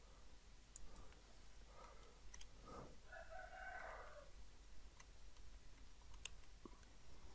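Near silence: faint room tone with a few soft computer-mouse clicks. About three seconds in there is a faint, distant pitched call lasting about a second and a half.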